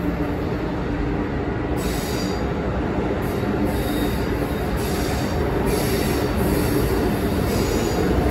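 Amtrak Acela Express train rolling past at low speed, with a steady rumble of wheels on rail. From about two seconds in, high thin wheel squeal comes and goes.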